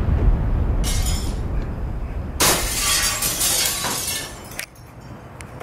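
The low rumble of a blast dies away, then window glass shatters and crashes down for about two seconds and cuts off suddenly: glass knocked out by the blast wave.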